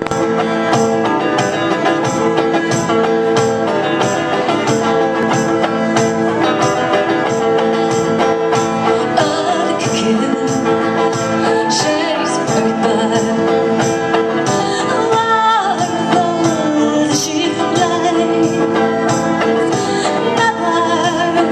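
Fiddle and resonator guitar playing an upbeat tune, driven by a steady beat of sharp percussive hits.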